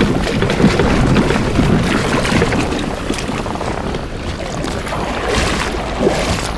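Wind buffeting the microphone, with water washing and splashing at the water's edge.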